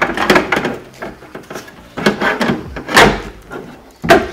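Window regulator mechanism being wrestled out of a Fiat Punto 199's door shell: irregular plastic and metal knocks and rattles against the inner door panel, the loudest about three seconds in and again near the end.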